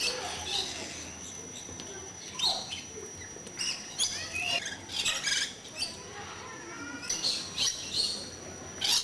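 A crowd of parrots calling: short squawks and chirps come irregularly, many at once, some sliding up or down in pitch. A few calls stand out louder, about two and a half, four, five and nine seconds in.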